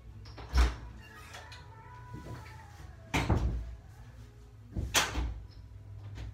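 Door knocks and thumps: three sharp bangs about two seconds apart, with smaller knocks in between, as a door is opened and shut.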